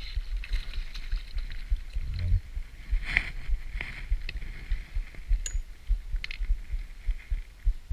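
Low, irregular thumping of water and wind against a small boat, with a few sharp clicks and knocks from about three seconds in.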